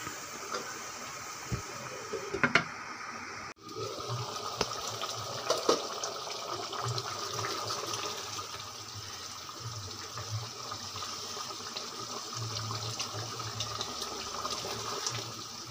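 A pot of mutton, potato and pea curry in stock simmering on a gas burner: a steady bubbling hiss with scattered small pops, broken briefly about three and a half seconds in.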